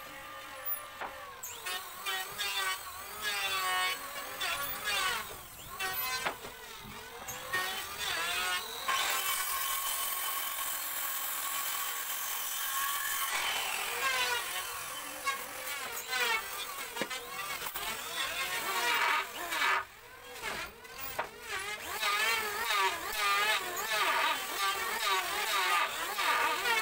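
A woodworking power tool runs with a steady high whine for about four seconds, starting about nine seconds in. Near the end an electric hand planer is cutting along a teak board, with dense rasping and high hiss.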